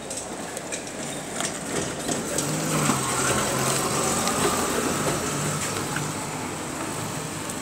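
A motor vehicle's engine running on the street, swelling in the middle and easing off near the end, with a few light clicks.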